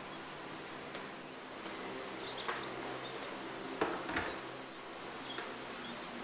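A few soft knocks and clicks over a faint steady background, the strongest about four seconds in as a stainless steel electric kettle is set on its base and switched on. A bird chirps faintly once or twice.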